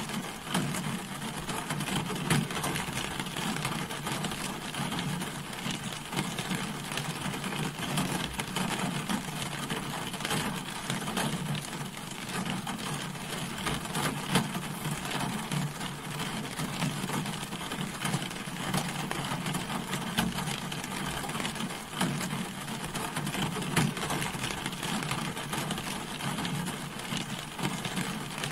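Rain falling on a car, a steady dense patter of drops with sharper individual drop hits now and then.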